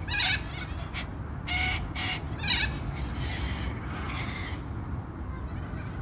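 White cockatoos screeching: a run of about seven harsh squawks in the first four and a half seconds, the loudest about two and a half seconds in, over a steady low rumble.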